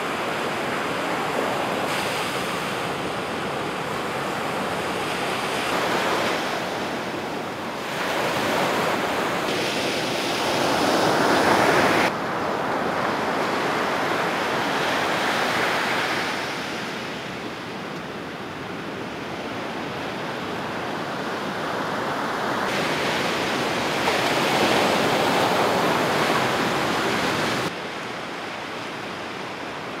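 Ocean surf breaking on a sandy beach: a steady rushing wash of waves that swells and fades as each set rolls in, with a few abrupt changes in level.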